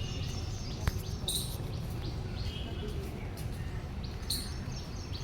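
Birds chirping in short calls, two of them louder, over a steady low rumble, with one sharp click about a second in.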